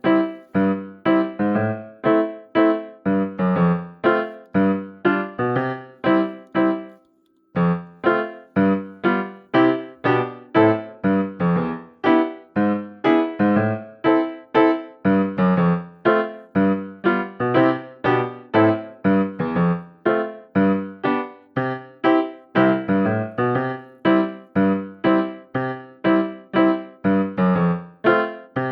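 Background music: a piano playing short, separate notes in a steady, bouncy rhythm, stopping briefly about seven seconds in.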